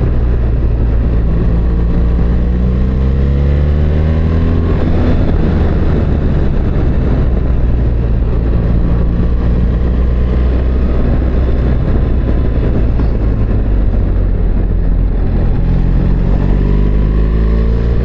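BMW R1300GS boxer-twin engine pulling uphill, rising in pitch three times as it accelerates, over a steady low rumble.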